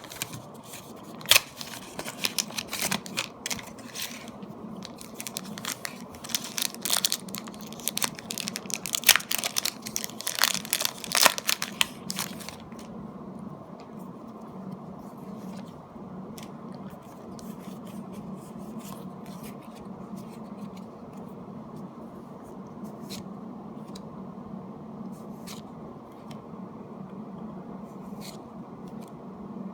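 Pokémon booster pack foil wrapper being torn open and crinkled, a dense crackling for about the first twelve seconds, then only scattered light ticks of the pack and cards being handled. A steady low hum runs underneath.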